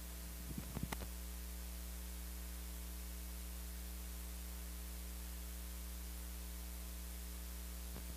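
Steady electrical mains hum on the recording, with a few short sounds clustered about a second in.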